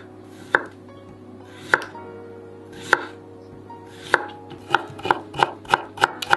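A Seki Magoroku Akane chef's knife slices a cucumber on a bamboo cutting board. The blade knocks sharply on the board about once a second at first, then about three times a second over the last couple of seconds as it cuts the slices into thin strips.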